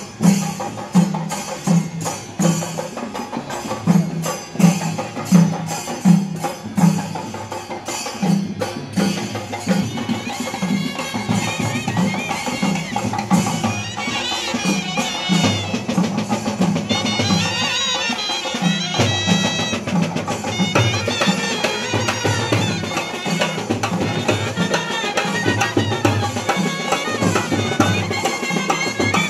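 Procession brass band playing: bass drums and side drums keep a steady beat, and trumpets and clarinets come in with a melody about ten seconds in.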